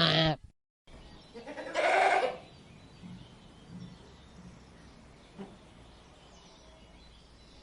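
Goats bleating: a long, loud, pitched bleat ends just after the start. After a brief silence, a single short, harsh bleat comes about two seconds in, followed by a faint outdoor background.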